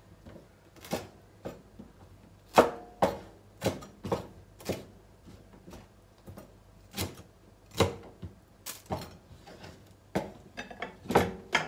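Kitchen knife slicing a green bell pepper on a wooden cutting board: irregular sharp knocks of the blade striking the board, some in quick pairs, with a pause of about two seconds midway.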